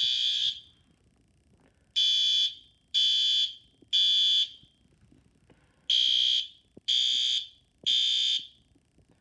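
System Sensor SpectrAlert Advance fire alarm horn strobe sounding the temporal-3 evacuation pattern after the manual pull station is pulled: loud, high-pitched horn blasts of about half a second, three in a row about a second apart, then a longer pause. The tail of one group is followed by two full groups of three.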